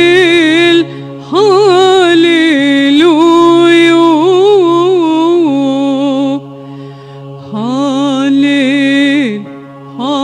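A woman singing an Arabic Christian hymn in long melismatic phrases, held vowels with ornamented turns and vibrato, over a steady low backing drone. One phrase ends about a second in, a long one follows, then a short break and another phrase, with a new one starting near the end.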